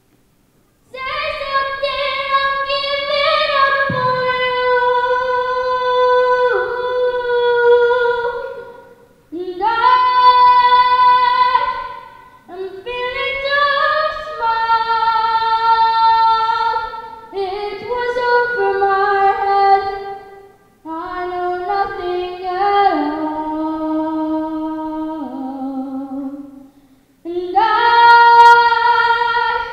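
A boy singing solo and unaccompanied into a handheld microphone: long, high held notes in several phrases, with short pauses for breath between them.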